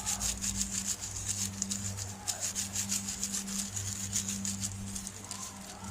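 Stirring and scraping in a bowl, tossing sliced pork with toasted rice powder: quick repeated rubbing strokes over a steady low hum.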